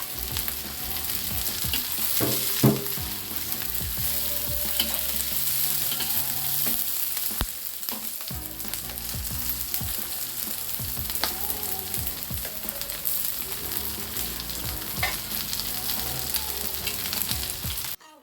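Shallots, garlic and freshly added chilies sizzling in hot oil while being stirred, with scattered clicks and knocks against the pan and one sharp knock about two and a half seconds in. The sizzle cuts off suddenly just before the end.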